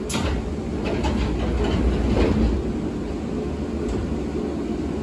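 Passenger doors of a stopped Keihan 7200 series electric train closing: a sharp click at the start, then the doors sliding shut with a run of knocks that is loudest about two seconds in. A faint click comes near the end, over the car's steady low hum.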